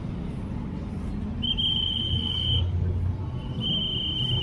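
Street traffic rumble with a vehicle passing, and two long, steady, high-pitched whistle blasts, the first about a second and a half in and the second near the end.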